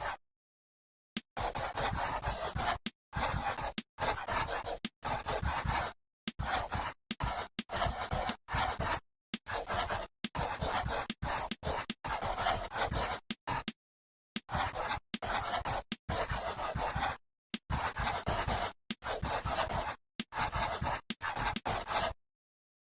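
Pen or pencil writing on paper: scratchy strokes in quick runs, broken by brief gaps of dead silence.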